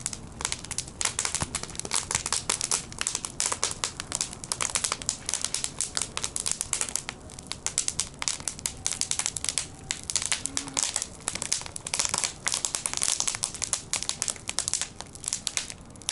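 A fire crackling in a barbecue grill, with a dense run of irregular snaps and pops.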